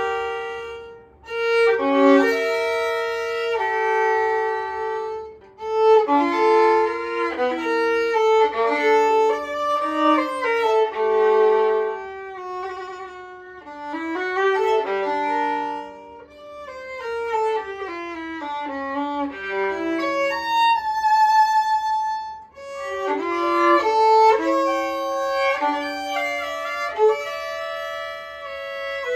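Solo violin, a German copy of an Ernst Heinrich Roth violin, playing a melody in phrases broken by short pauses, with scale-like descending runs in the middle and held high notes with vibrato later on.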